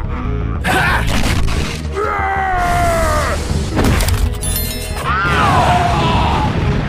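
Background music under cartoon fight sound effects: a few hard hits and a shattering crash of breaking pavement, with two long voice-like cries, one slowly falling and one rising then falling.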